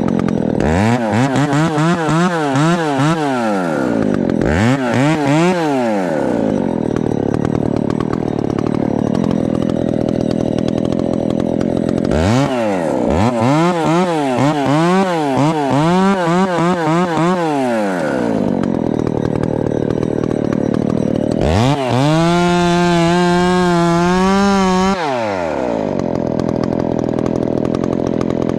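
Ported chainsaw cutting into a grand fir during felling. The engine pitch wavers rapidly up and down in several stretches between spells of steadier running under load. Near the end it is held at high revs for about three seconds, then drops to idle.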